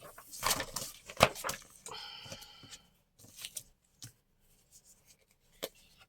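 Paper and craft supplies being handled on a desk: rustling and light tapping, with one sharp knock about a second in and a brief pitched sound about two seconds in.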